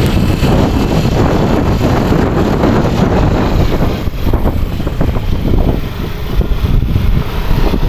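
Loud, steady wind rushing over the microphone with the road and engine noise of a moving vehicle.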